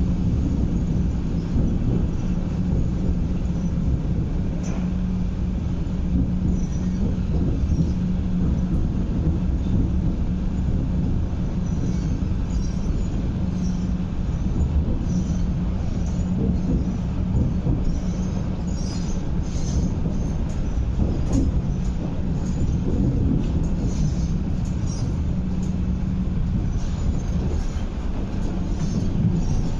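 MTR East Rail Line MLR electric train with a steady low hum and rumble. From about halfway on, short high clicks and squeaks come and go over the hum.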